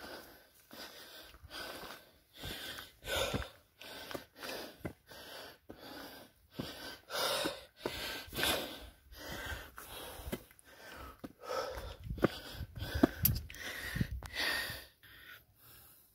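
A person's heavy, quick breathing close to the microphone, in and out in short rasping bursts: out of breath from climbing steep stone steps. A few sharp taps come in between, the loudest near the end.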